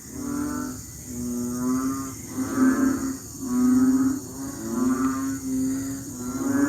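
A chorus of frogs giving mating calls in the rainy season: short, low calls, each with a buzzy ring, repeated about once every three quarters of a second, with several frogs overlapping.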